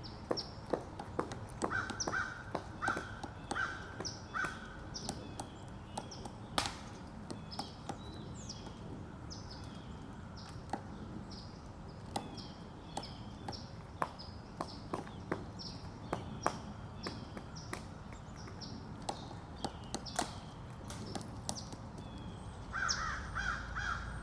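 Pileated woodpecker chiseling into a tree: irregular sharp wooden knocks, one or two a second. A short series of loud, evenly spaced call notes comes a couple of seconds in and again near the end.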